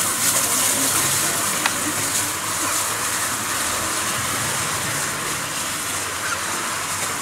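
Hunslet J94 Austerity 0-6-0 saddle tank locomotive moving off light engine, giving a steady hiss of escaping steam over a low rumble.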